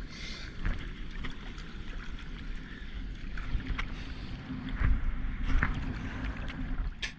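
Ocean water sloshing and lapping around a surfboard, with a few small splashes and low wind rumble on the microphone.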